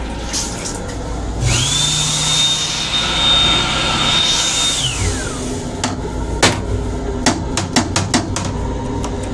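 The M7 railcar restroom's hand dryer spins up to a steady high whine with rushing air for about three seconds, then winds down. This is followed by a run of sharp plastic clicks and knocks as the toilet seat lid is handled, over a low steady rumble.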